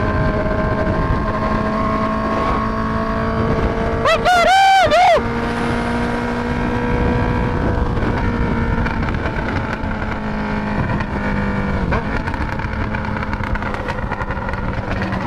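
Honda CB650F inline-four running at speed through a full stainless-steel aftermarket exhaust, with road and wind noise. About four seconds in, a quick series of about four sharp revs rises and falls within a second, the loudest moment.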